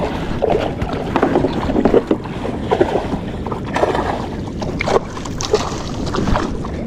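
Wind buffeting the microphone and water slapping against a plastic kayak hull, with irregular splashes and knocks as a hooked bonito thrashes at the surface beside the kayak.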